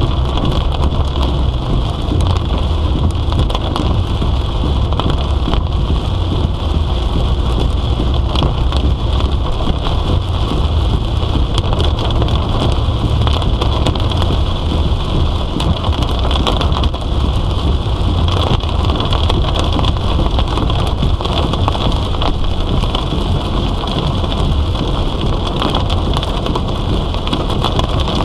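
Heavy monsoon rain pelting a moving car, heard from inside the cabin as a dense, steady patter of drops over a constant low road rumble.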